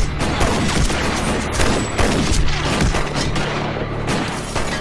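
Handgun gunfire from a shootout: many shots in quick, overlapping succession, over a low steady drone.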